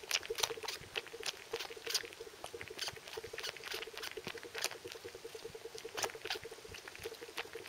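Cat suckling on a person's finger: irregular wet sucking and smacking clicks, several a second, over a steady pulsing hum.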